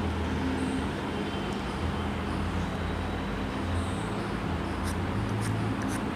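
A steady low hum over background noise, with a few faint clicks about five seconds in.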